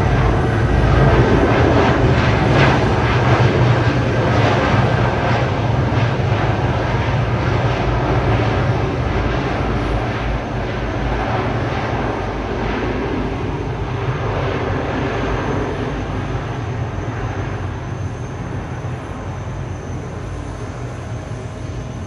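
Jet engines of an Airbus A320-200 airliner as it comes in to land: a loud steady rumble and roar, loudest in the first few seconds and then slowly fading as it passes.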